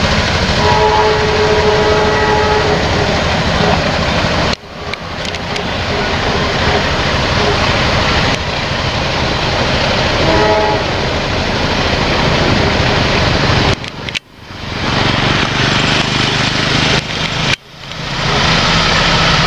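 Diesel locomotive of an approaching Indonesian passenger train sounding its horn twice: a longer chord-like blast about a second in and a shorter one about ten seconds in. Under it runs a steady loud noise that drops out suddenly for a moment a few times.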